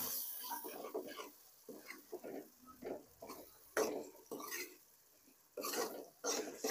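Steel ladle stirring and scraping onion-tomato masala around a stainless steel wok, a run of short, irregular scrapes and knocks against the metal.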